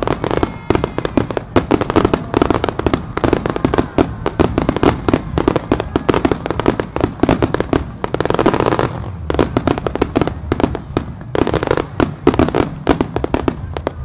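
Fireworks barrage: aerial shells bursting in rapid succession, many bangs a second overlapping one another. A denser rush of noise comes about eight seconds in.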